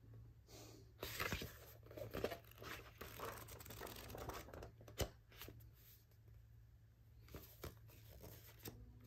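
Pages of a paperback manga volume rustling as they are riffled through by hand, with a sharp tap about halfway through as the book is handled; quieter handling afterwards.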